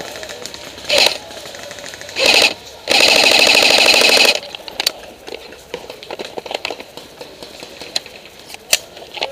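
Airsoft electric rifle firing on full auto: two short bursts, then a longer burst of about a second and a half, followed by scattered lighter clicks and a sharp crack near the end.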